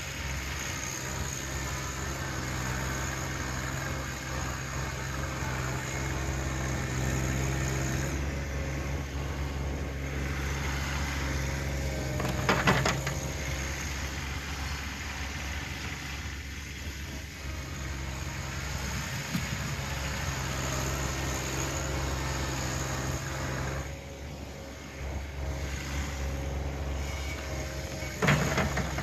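John Deere 1026R compact tractor's three-cylinder diesel running steadily while it moves snow with its front loader, the engine note shifting as the load changes and easing off briefly about three-quarters of the way through. Two sharp knocks, one near the middle and one near the end, are the loudest moments.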